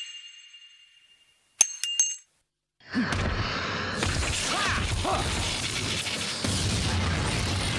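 A small ring dropping onto a steel grating: two sharp metallic clinks with a ringing tone, about half a second apart. From about three seconds in, a loud, dense fight soundtrack of music mixed with whooshes and impact effects.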